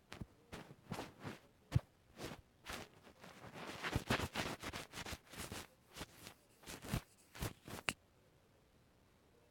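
Close-miked ASMR handling sounds: an irregular run of taps, clicks and short rustling scrapes from objects handled near the microphone, which stop abruptly near the end.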